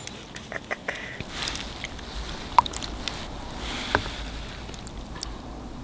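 Eating sounds: scattered light clicks and scrapes of a spoon and chopsticks in a takeout soup container, with one sharper click a bit under halfway through.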